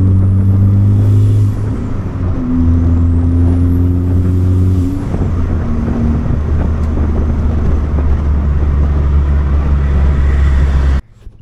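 Turbocharged Ford Focus ST Mk3's 2.0 EcoBoost four-cylinder running loudly under load on a big sidewinder-kit turbo, the engine note stepping in pitch a few times. A high turbo whistle rises and falls twice in the first five seconds. The sound cuts off suddenly near the end.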